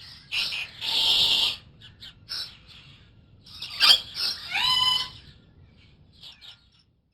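Bird calls: a string of harsh squawks and ringing calls that rise in pitch and then hold, mixed with shorter chirps, the loudest calls about a second in and around four to five seconds in.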